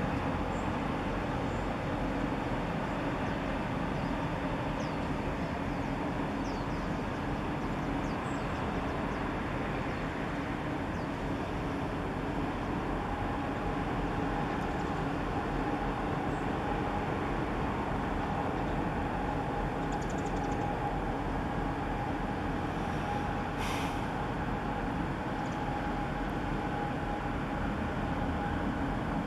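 Steady low rumble and hum of a large bulk carrier's engines and machinery as it moves slowly into port at close range. A steady higher whine comes in about halfway through, and there is a brief click near the end.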